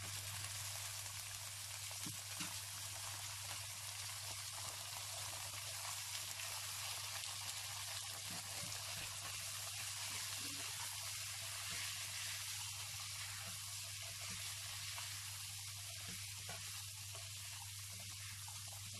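Boiled white chickpeas frying in hot oil with browned onions in a nonstick wok: a steady sizzling hiss, with light scrapes of the spatula as they are stirred.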